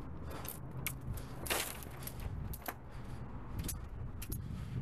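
A vehicle engine idling steadily, with scattered light clicks and a short scraping rustle about one and a half seconds in.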